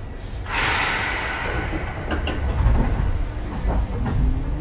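Seibu 2000 series field-chopper electric train heard from inside the car: a sudden hiss of compressed air about half a second in, then clunks as the car starts to roll. Near the end the pitch of the traction motors begins to rise as the train pulls away.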